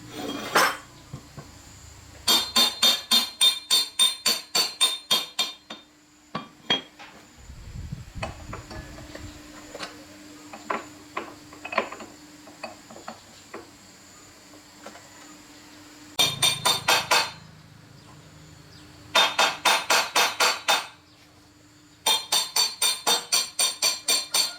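A hammer striking metal in four runs of quick, evenly spaced blows, about four to five a second, each blow ringing. Scattered lighter knocks fall between the runs.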